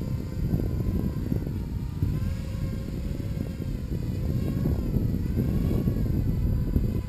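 HK 250 mini quadcopter's brushless motors and propellers whining in flight, the pitch rising and falling several times as the throttle is worked to hold the hover. A heavy low rumble of wind on the microphone runs underneath.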